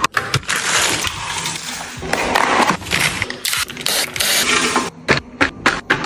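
Restocking handling sounds: a few sharp clicks and taps, then several seconds of a continuous hissing rush, and quick clicks again near the end.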